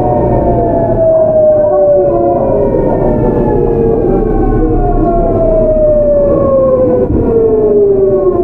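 GEC Alsthom GTO VVVF inverter of a Seoul 8000-series train, a siren-like whine of several tones falling steadily in pitch over rail and running rumble as the train slows, stepping back up once partway through before falling again.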